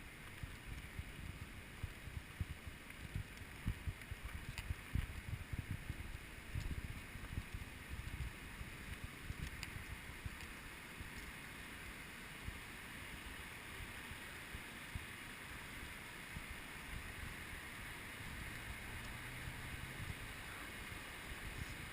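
Wind buffeting the camera microphone in uneven low gusts, stronger in the first half, over a steady rushing hiss, with a few faint clicks.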